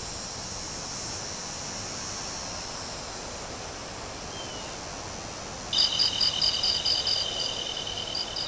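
Outdoor insect chorus: a steady high-pitched hiss, then about two-thirds of the way through a louder, rapidly pulsing high chirping starts abruptly and keeps going.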